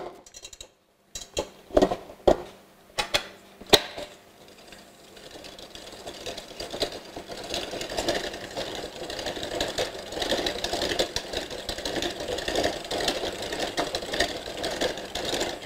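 Stand mixer whipping butter and sugar for the frosting: a few knocks and clicks as it is set going, then the motor and beater start about four seconds in and run steadily, growing louder.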